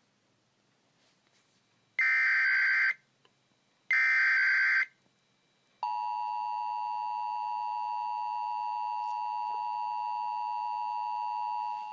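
Emergency Alert System signal: two one-second bursts of digital header data, then the steady two-tone attention signal held for about six seconds, which heralds an emergency alert broadcast.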